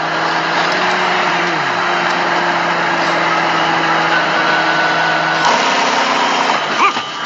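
Vehicle engine running steadily under a wash of noise, like a truck on the road. Part of the hum slides down in pitch about a second and a half in, and the sound shifts about five and a half seconds in.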